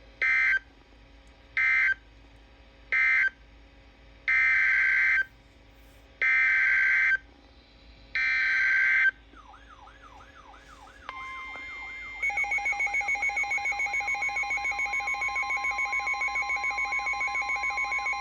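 NOAA Weather Radio EAS/SAME data bursts: three short end-of-message bursts, then three longer header bursts announcing the next alert. These are followed by the steady 1050 Hz weather-radio warning tone, which starts about 11 seconds in. About a second later a rapidly pulsing alarm beep joins it, and a warbling siren-like tone runs underneath.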